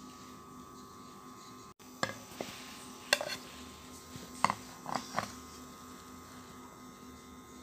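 A few light clinks and knocks of a serving spoon against the dishes as semolina upma is served onto a plate, between about two and five seconds in, over a faint steady hum.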